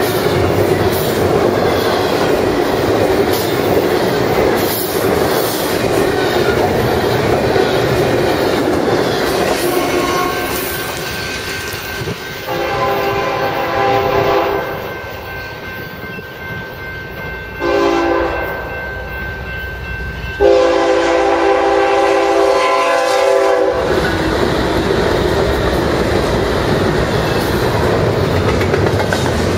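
Double-stack intermodal freight train rolling past close by with a steady rumble and wheel clatter. About halfway through, a diesel locomotive's multi-tone air horn sounds several blasts: a long one, a short one, then a longer, louder one. The horn comes from the westbound train approaching for the meet. The clatter of the passing cars then returns.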